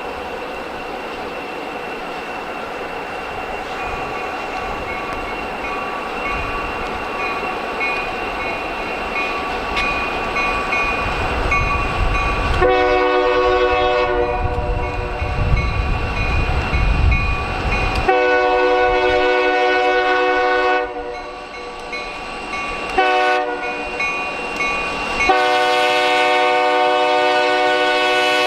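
Escanaba & Lake Superior EMD SD40 diesel locomotive approaching, its rumble growing louder. Its horn then sounds the grade-crossing signal: long, long, short, long, with the last blast held past the end.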